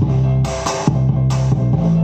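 Music with plucked guitar and bass over a beat, played through a Beecaro K1202 portable Bluetooth speaker.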